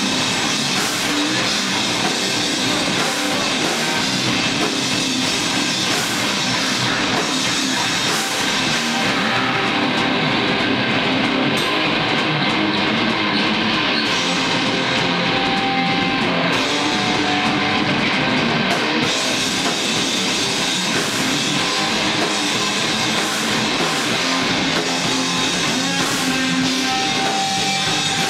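Live heavy metal band playing loudly: distorted electric guitars, bass and a drum kit.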